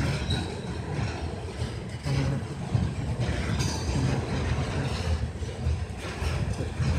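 Freight train of covered hopper cars rolling along the track: a steady low rumble, with faint brief wheel squeals near the start and about three and a half seconds in.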